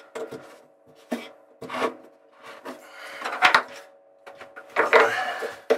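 Hands gripping and turning a Trudesign composite seacock on the hull, working its lever handle: irregular rubbing and scraping of plastic against the fitting and hull. A sharper knock comes a little past halfway, and a louder scrape follows near the end.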